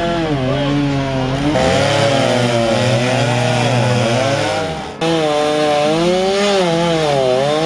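Stihl two-stroke chainsaw running hard and cutting through logs, its pitch dipping and rising as the chain bites into the wood. The sound breaks off abruptly about five seconds in and starts again at once.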